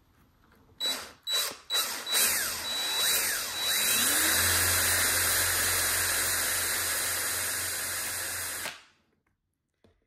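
Cordless drill with a small 5/64-inch bit drilling out the metal rivet pin of a Swiss Army knife. It gives a few short trigger blips, then runs steadily for about seven seconds and cuts off abruptly.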